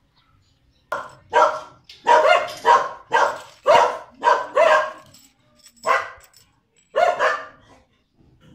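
A dog barking repeatedly: a run of about a dozen short, loud barks, with a pause of about a second before the last few.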